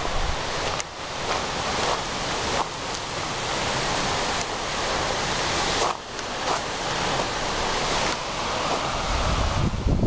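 Lake Superior surf breaking on a rocky shore, a steady rushing wash of waves. Wind starts buffeting the microphone near the end.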